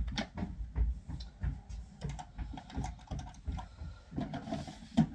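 Quick, irregular clicks and light knocks of small makeup items being handled and set down on a tabletop, with a sharper knock near the end.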